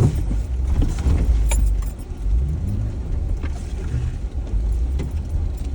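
A Jeep driving slowly over a rough, rutted dirt trail: steady low rumble from the vehicle, with knocks and rattles as it drops through ruts, the loudest right at the start.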